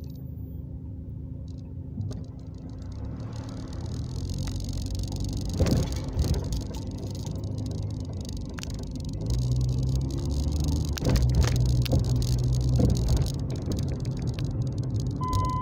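Car engine and road noise heard from inside the cabin while driving, with a low hum that grows louder about nine seconds in and a few knocks and rattles. A short high beep sounds near the end.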